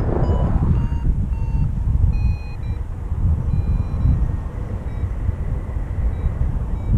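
A paraglider's variometer beeping in short beeps that shift in pitch, the tone it gives when the glider is climbing in lift. A steady rumble of wind on the microphone runs underneath and is louder than the beeps.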